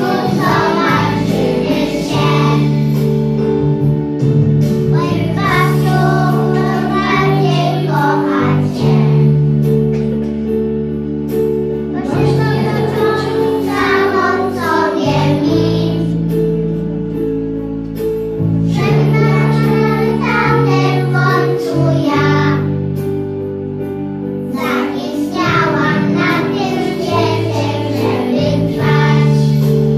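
Young children singing together over a steady instrumental accompaniment, in phrases with short breaks between them.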